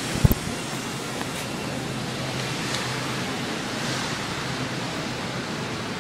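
Steady, even rushing noise of a floor-cleaning machine running, with one short knock just after the start.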